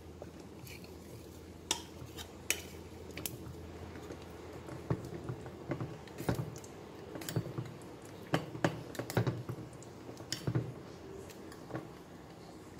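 Metal spoon stirring a syrupy agar mixture in a stainless steel bowl in a double boiler, with irregular clinks and scrapes against the bowl's side. The clinks stop near the end.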